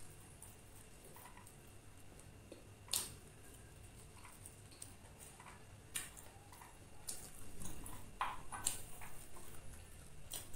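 Quiet eating and handling sounds: a few short, sharp clicks and ticks spread a second or more apart, with faint mouth sounds in between.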